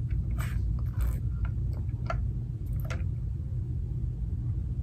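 Sipping through a straw from a lidded plastic tumbler: about four short clicks and sips, over a steady low hum.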